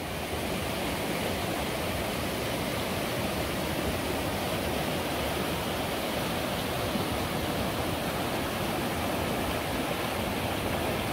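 Shallow rocky river rushing over boulders in white-water rapids, a steady sound of running water.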